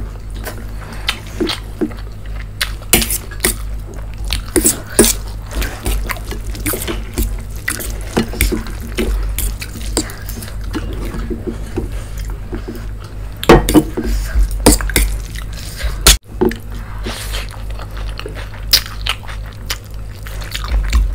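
Close-miked mukbang eating sounds: wet chewing, smacking and slurping of saucy noodles and manchurian, with fingers squishing and mixing food in steel plates, as irregular clicks and smacks over a steady low hum.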